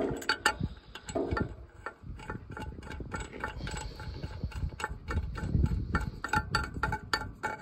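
Irregular small metal clicks and ticks, a few a second and busier near the end, as the cap on a Ford 8N tractor's oil filter housing is set back in place and its nut is turned down by hand.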